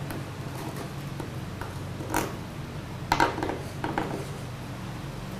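Child-resistant safety cap on a metal can of acetone being worked open by hand: a few sharp plastic clicks and scrapes, the loudest about three seconds in, as the cap resists opening. A steady low hum runs underneath.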